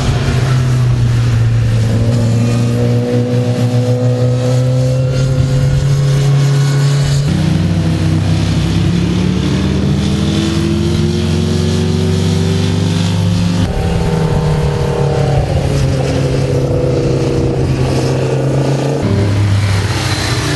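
Sport motorcycle engines running hard as the bikes ride through curves. The engine note holds steady or climbs, and it changes abruptly about seven, thirteen and nineteen seconds in as one bike gives way to the next.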